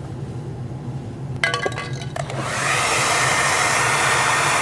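A few clicks and rattles as a hair dryer is handled, then the hair dryer switches on about two seconds in. It blows steadily, with a rush of air, to heat the dented plastic bumper. A low steady hum runs underneath.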